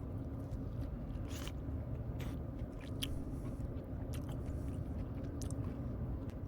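A person chewing and eating soft pandan cake up close, with a few short mouth clicks and smacks scattered through, over a steady low hum.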